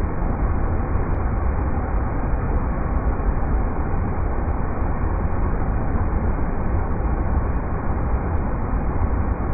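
River rapids: a steady, unbroken rush of water, heaviest in the low range.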